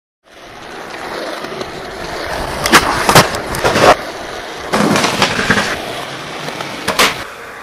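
Skateboard wheels rolling on pavement, fading in and building, with a string of sharp board clacks and impacts through the middle and one more near the end.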